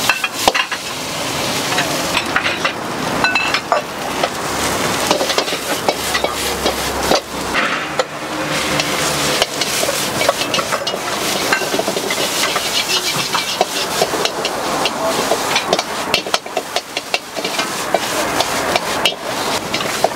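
Stir-frying in a wok over a high gas flame: the food sizzles steadily while a metal ladle scrapes and clanks against the pan again and again.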